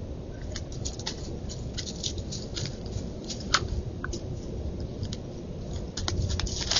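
Scattered short crackles and crunches from a coyote moving over dry leaf litter and nosing at the ground where seed is spread, over a steady background hiss. The crackles come thicker near the end.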